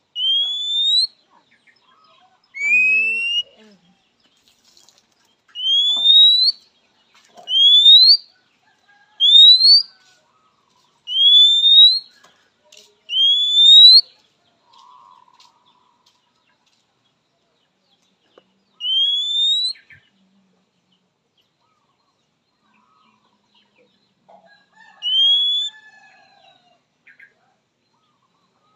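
Oriental magpie-robin (kacer) giving a series of nine loud, clean rising whistles, each just under a second long. The first seven come about every two seconds, then there are two more after longer pauses. This is the kacer's typical call to challenge a rival.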